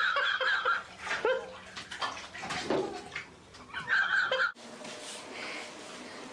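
A toddler's high-pitched squeals and bathwater splashing in a bathtub. The sound cuts off suddenly about four and a half seconds in, leaving faint room tone.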